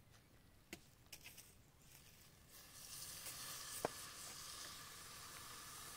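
Water poured from a jug into a hot pot over a campfire, hissing and sizzling as it hits the hot pan from about two and a half seconds in. A few light clicks early on and one sharp click a little after the middle.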